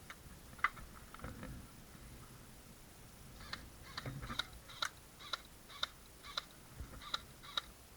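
Airsoft gun firing single shots on semi-auto: one sharp shot shortly after the start, then a run of about nine shots at roughly two a second during the second half, stopping shortly before the end.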